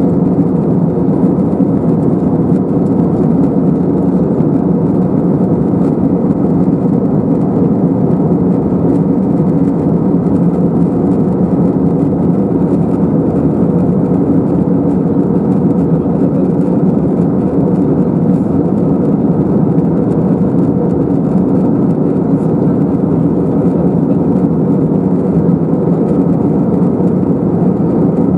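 Cabin noise inside an Airbus A321-212 in flight, heard from a window seat over the wing: the CFM56 turbofan engines and the airflow past the fuselage make a steady low drone with no change.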